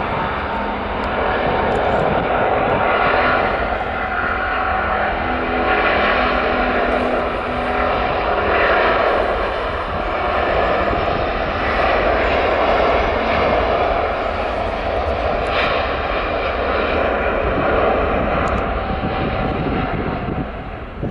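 Jet airliner engines running loud and steady, a dense rush of engine noise with a steady whining tone through it.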